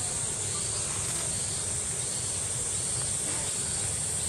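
Cicadas droning steadily in one continuous high-pitched hiss, with faint short chirps and a low background rumble beneath.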